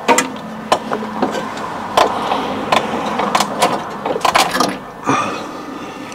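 Irregular metallic clanks and clicks from a hydraulic engine crane and the lifting chains as an engine hanging from it is shifted and worked out of the engine bay, about ten sharp knocks spread unevenly.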